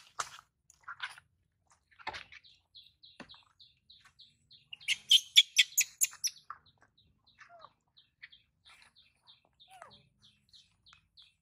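A bird chirping over and over in short, high notes, about three a second, with a louder run of shrill high calls about five seconds in and a few short falling squeaks after it.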